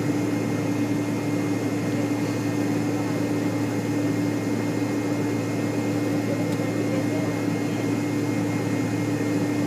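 Steady cabin drone inside a McDonnell Douglas MD-80 taxiing in after landing: its rear-mounted Pratt & Whitney JT8D engines at idle together with the cabin air. An even hum with a constant low tone running through it.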